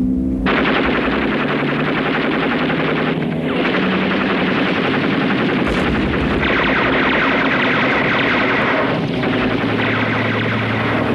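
Rapid, continuous machine-gun fire, as from aircraft strafing a surfaced U-boat, starting about half a second in with two brief breaks.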